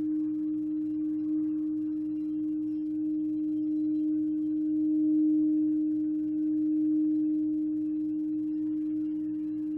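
Violet flame crystal singing bowl ringing one steady tone, with a fainter overtone an octave above. It swells and eases gently in volume.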